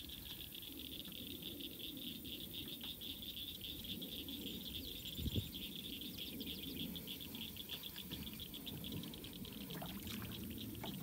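Steady chorus of small calling animals, a high trill made of fast pulses, going on throughout. About five seconds in there is a single short thump.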